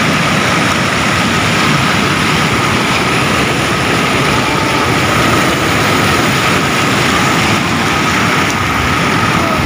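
Muddy floodwater rushing over a weir in a swollen river: a loud, steady churning of turbulent water.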